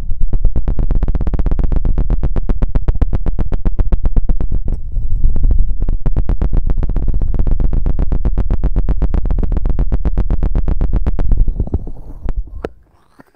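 Feather rod scratching and knocking very fast on an ASMR microphone, an even run of about ten strokes a second that sounds close and heavy in the low end. It thins out and stops near the end.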